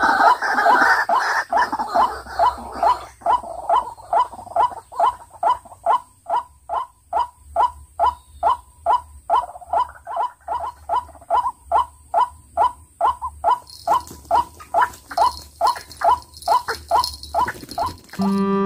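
White-breasted waterhens calling: a long run of repeated ruak-ruak notes, about two and a half a second, thicker and louder in the first two seconds. A short music sting comes in just before the end.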